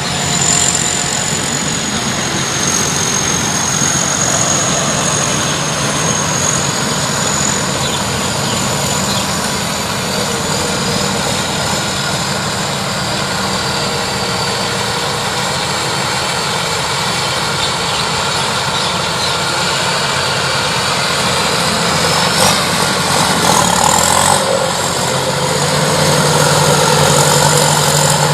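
Combine harvester running steadily, with an engine hum under a high, thin whine; the engine note grows louder near the end.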